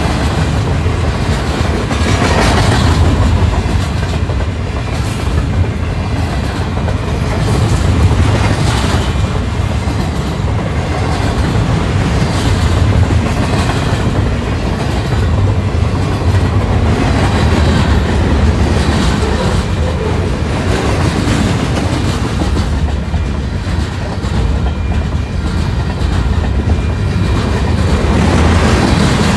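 Freight train of intermodal well cars loaded with containers rolling past close by. Its steady low rumble and clicking wheels swell every few seconds as sets of wheels pass.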